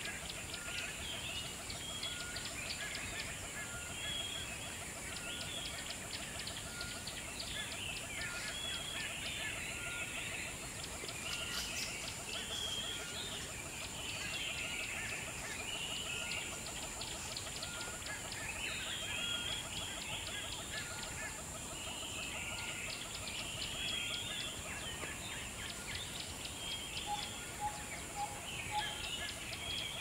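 Forest bird chorus: many birds chirping and calling over one another, with a fast trill underneath and a steady high hiss. Near the end a short run of repeated clear notes joins in.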